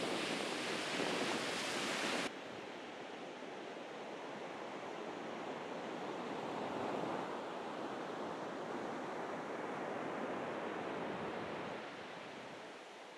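Ocean surf breaking on a sandy beach, a steady wash of waves with wind buffeting the microphone. About two seconds in the sound drops abruptly, and the surf goes on softer, swelling and ebbing.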